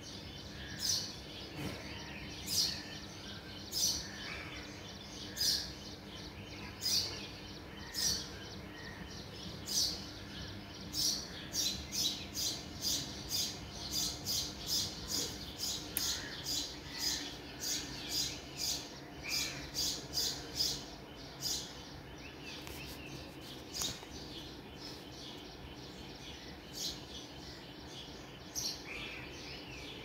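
Embroidery needle and thread pulled through fabric stretched taut in a hoop: a string of short scratchy rasps. They come about one every second and a half at first, quicken to about two a second in the middle, then thin out again near the end.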